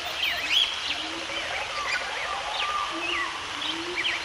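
Several birds calling and singing at once, in short rising and falling whistled chirps, over a steady background hiss.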